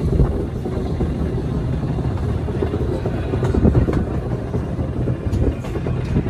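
Schynige Platte Railway rack train running, a steady low rumble with a few light rattles.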